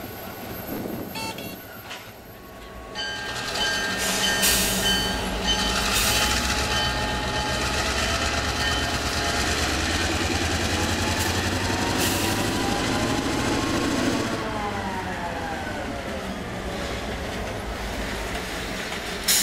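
The 16-cylinder EMD 567 prime mover of a CN GP9RM diesel locomotive powering up as the locomotive moves its train. Its sound comes up sharply about three seconds in, then climbs in pitch for several seconds and falls back as the throttle is eased off. A sharp snap sounds near the end.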